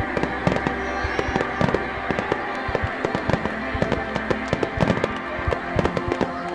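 Fireworks bursting in quick succession, many sharp bangs and crackles a second, starting suddenly at the outset, over steady background music.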